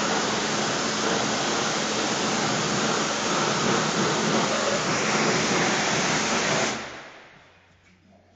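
Pressure-washer jet spraying water onto a foam-covered engine part on a tiled floor: a steady loud hiss of spray with a low hum beneath it. It cuts off about seven seconds in and dies away.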